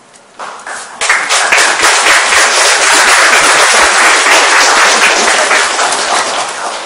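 Audience applauding, a dense patter of many hands clapping that starts suddenly about a second in and dies away near the end.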